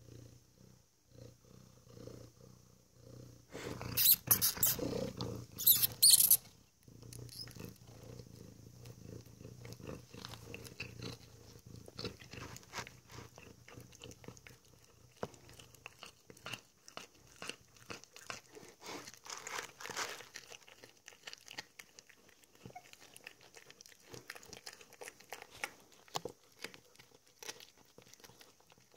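Domestic cat eating a freshly caught mouse: many small wet chewing and crunching clicks. Before that comes a low rumbling sound, then a loud harsh stretch about four to six seconds in.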